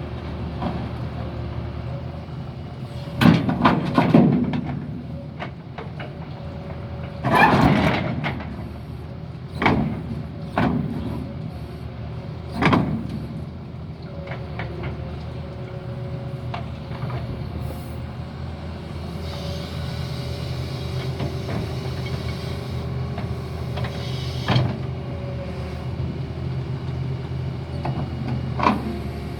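Heavy diesel engine running steadily, with repeated loud metallic clanks and knocks: a cluster about three seconds in, more around eight to thirteen seconds, and single ones near the end.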